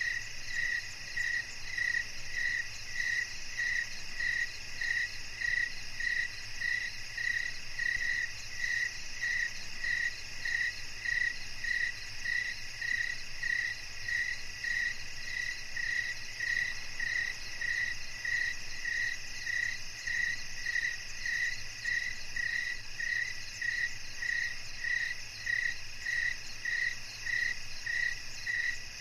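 Night insect chorus: a steady, shrill, high-pitched buzzing of several insects, with one call repeating in regular pulses about one and a half times a second.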